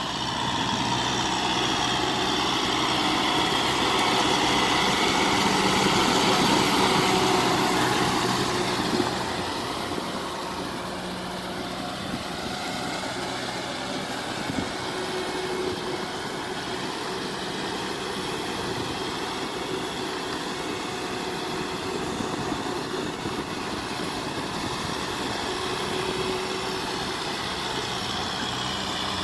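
Diesel engine of a Kubota M6040SU tractor, a four-cylinder, running steadily under load as the tractor churns through a flooded rice paddy with its rotary tiller and front blade. The engine is louder for the first eight or nine seconds, then a little quieter for the rest.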